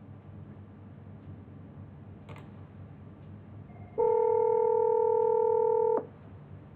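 Telephone ringback tone on an outgoing Cisco Jabber softphone call: a steady two-second tone with a slight wavering in level that stops abruptly, the sign that the called phone is ringing. A faint click comes a little earlier.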